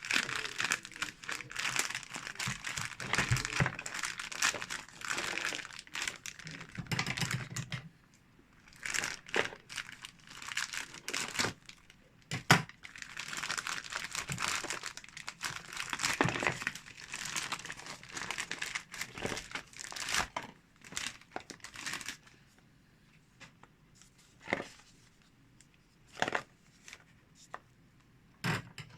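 Plastic packaging crinkling and rustling as it is handled, in two long spells, followed by a few separate clicks or taps near the end.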